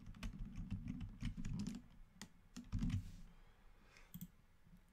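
Typing on a computer keyboard: a quick run of keystrokes for about three seconds, then only a couple of isolated clicks.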